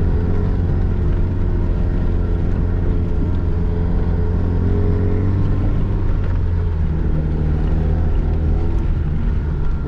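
Zastava Yugo Koral In's small four-cylinder engine running under light load, heard from inside the cabin as a steady low drone whose pitch drifts a little as the car crawls along a grassy track.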